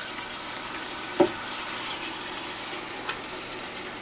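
Onions frying in ghee in an Instant Pot on sauté, a steady sizzle, with a single knock about a second in as marinated chicken is added.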